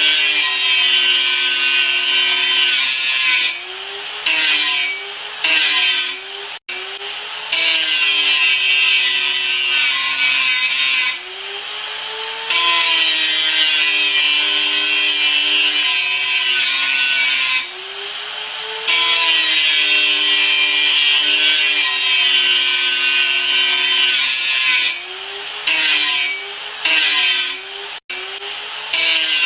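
Electric grinder running and pressed against a surface: a loud, steady grinding hiss over the motor's hum. Several times the tool comes off the work, the hiss drops away and the motor's pitch rises, then it bites again and the pitch sinks under load.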